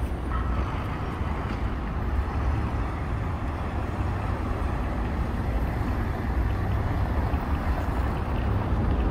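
City street noise: steady traffic hum from passing cars, with a low rumble of wind on the microphone.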